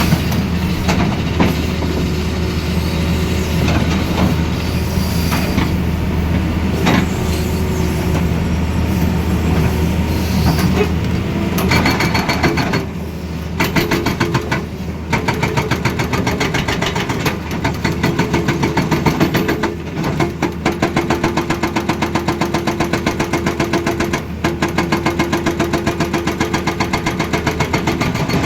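Tata Hitachi Zaxis excavator's diesel engine running steadily. From about halfway, its hydraulic breaker hammers rapidly in runs with short pauses between them.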